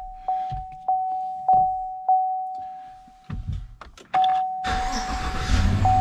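A 2015 GMC Yukon's in-cabin warning chime dings about every 0.6 s and fades out about halfway. After a few clicks, the chime starts again and the V8 engine cranks and starts near the end, running with a low rumble.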